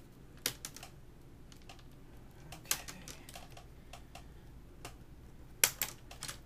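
Dell Studio 1558's plastic screen bezel clicking as its snap clips pop loose one at a time under finger pressure. The clicks come irregularly, with the loudest pair of snaps near the end.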